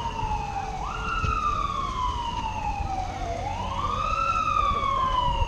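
Fire truck siren wailing, each cycle rising quickly and then falling slowly, about once every two and a half seconds, over a low rumble.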